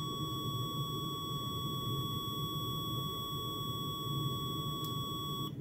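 Multimeter continuity beeper sounding one steady, unbroken high tone while the two probe tips touch, cutting off near the end. It has no crackle or dropouts, the sign of a clean contact from freshly polished, oxide-free probe tips.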